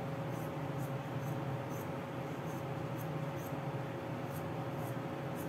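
Scissors snipping off stray plush fibres along a seam: faint, irregular little snips, about eight of them, over a steady background hum.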